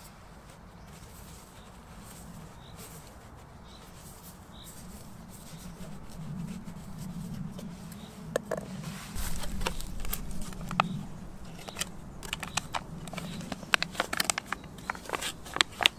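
Hands rustling tissue paper and aluminium foil and handling a metal can while packing and covering a homemade alcohol stove. In the last few seconds there are quick sharp crackles.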